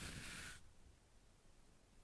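A soft, close rustling hiss that stops about half a second in, followed by near silence.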